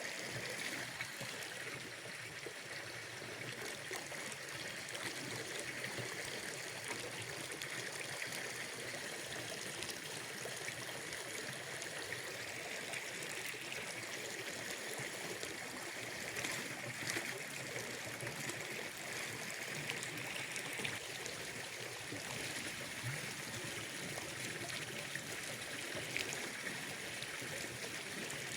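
Water trickling steadily, a gentle continuous flow with a few faint scattered ticks.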